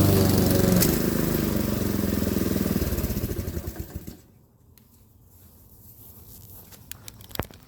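Honda HRX217 walk-behind lawn mower engine running after cutting tall grass, then shut off: a click a little under a second in, and the engine slows and winds down to a stop about four seconds in. A few faint clicks and a knock follow.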